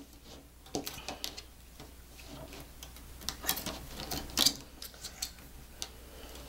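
Deco wire being woven and twisted around a metal wire wreath frame: irregular light metallic clicks and ticks as the wire taps and scrapes against the frame, with a couple of louder clicks around the middle.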